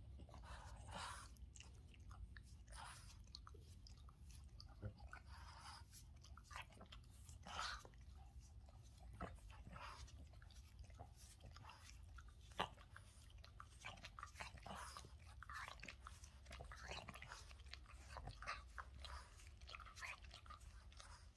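Boston terrier licking and nibbling a person's hand: faint, irregular wet smacks and clicks of tongue and mouth.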